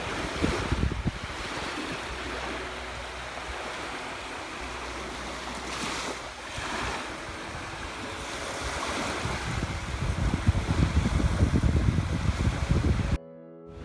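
Small sea waves lapping at the shoreline, with wind buffeting the microphone as a low, uneven rumble that grows stronger about ten seconds in.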